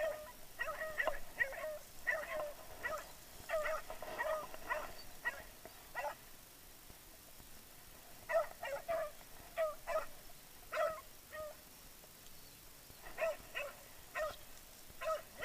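Hunting dogs barking in bouts of short, repeated barks, pausing for a second or two between bouts.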